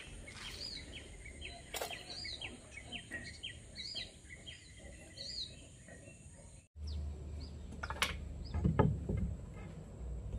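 Small birds chirping over and over, with a steady high thin tone behind them. About two-thirds of the way through, the sound cuts to a low hum with a few sharp knocks.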